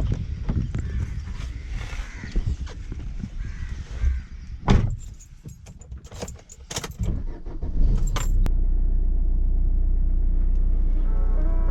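Keys jangling with clicks and rustling of handling, then a car running with steady low road rumble from about eight seconds in. Music comes in near the end.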